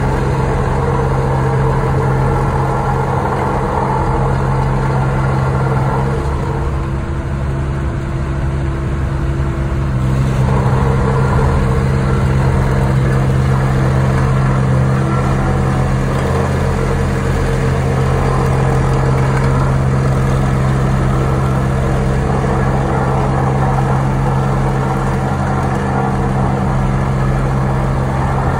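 Wacker Neuson remote-controlled trench roller's diesel engine running steadily as the roller drives over loose gravel, with a slight change in its note about ten seconds in.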